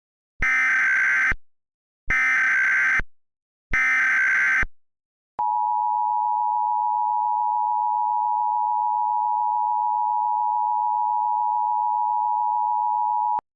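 Emergency Alert System header: three short bursts of SAME data tones, each about a second long. They are followed by the EAS attention signal, a steady mid-pitched tone held for about eight seconds that cuts off suddenly, marking the start of an emergency alert.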